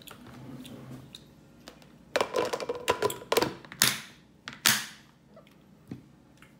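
A plastic clip-lock lid is pressed onto a glass food container and its clips are snapped shut: a quick run of sharp clicks and knocks lasting about three seconds, the loudest near the end.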